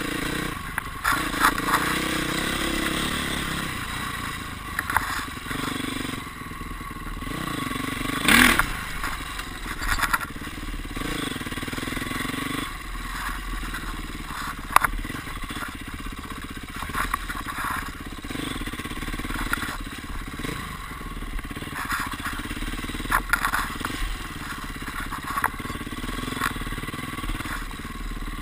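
Dirt bike engine revving up and down with the throttle while riding a rough trail. Short knocks and clatter from the bike over bumps come through, with one loud knock about eight seconds in.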